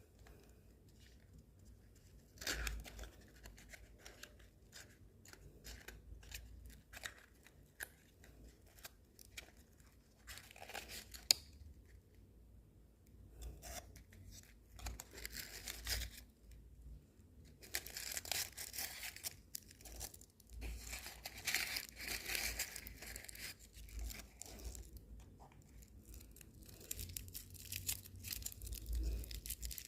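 Small packaging being torn open and crinkled by hand: paper or plastic tearing and rustling in irregular bouts, busiest in the second half, with one sharp click about eleven seconds in.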